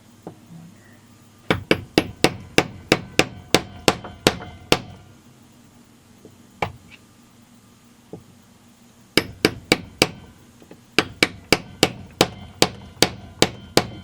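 Light hammer taps driving an aftermarket crankshaft seal into a Stihl MS200T chainsaw's crankcase half through a deep socket used as a seal driver. The strikes are sharp and slightly ringing, about three a second. They come in three runs, with a single tap between the first two.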